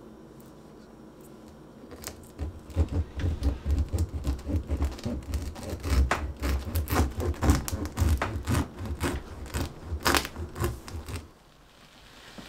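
Knife cutting through the crisp crust of a round sourdough loaf: a dense run of short, sharp crackles that starts about two seconds in and stops shortly before the end.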